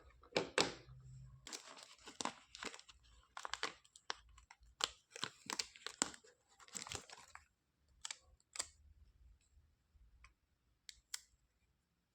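Close handling noise: a dense run of short rustling, crinkling scrapes and clicks, then only a few scattered clicks for the last few seconds.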